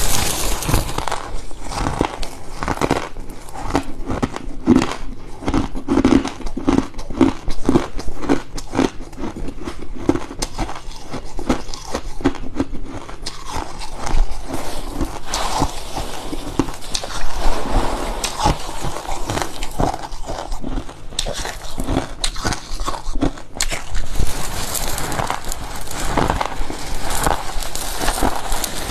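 Freezer frost being bitten and chewed: a continuous run of crisp, crackly crunches.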